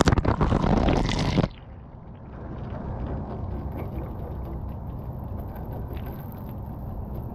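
Water from a hose splashing straight onto the camera at close range, loud, until it cuts off suddenly about a second and a half in. After that the hose runs gently onto the deck with small patters and drips over a low rumble.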